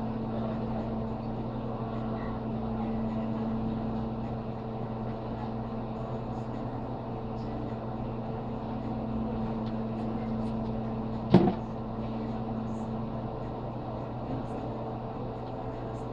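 Steady low machine hum, with a single sharp knock about eleven seconds in.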